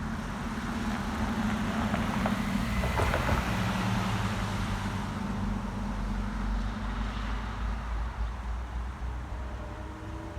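Diesel locomotive engine running with a steady low drone and rumble.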